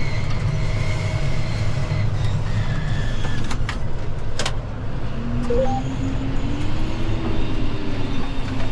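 John Deere tractor's diesel engine running steadily, heard from inside the cab, with a faint high whine over the low drone. A few sharp clicks come about four seconds in, and in the second half a low tone rises and then falls again.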